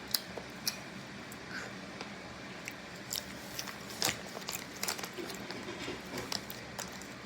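A child chewing and biting a snack close to the microphone, with scattered small crunches and mouth clicks, the loudest about four seconds in.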